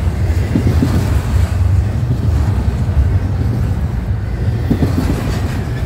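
Double-stack intermodal freight train rolling past at close range: a steady low rumble of well-car wheels on the rails, with a couple of brief knocks.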